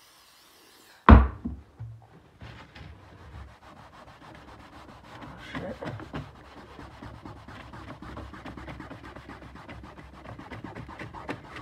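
A brief hiss of WD-40 sprayed from an aerosol can, then a single loud knock about a second in. After that, a cloth rag rubs back and forth over a plastic bin lid, wiping off permanent marker loosened by the WD-40.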